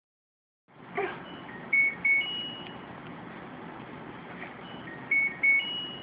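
Dishwasher control panel playing its short electronic beep tune, a few quick notes ending on a longer higher note, set off by button presses. The tune plays about two seconds in and again near the end. A knock on the door comes about a second in.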